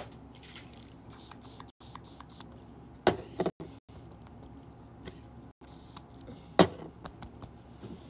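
A few short knocks and clicks of objects being handled, two close together about three seconds in and a louder one near the end, over a low steady background hum.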